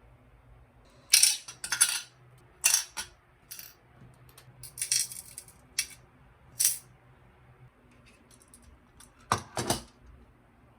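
Small hard objects being handled and set down: a string of short clicks and rattling clatters at uneven intervals, the loudest pair near the end.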